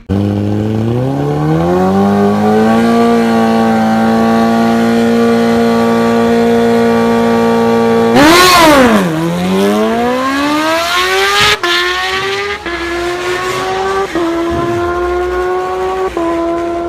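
Motorcycle engine revving up and holding at high revs. About eight seconds in it passes close and loud, its pitch swooping up then down. It then accelerates away through four gear changes, each upshift a quick dip in pitch.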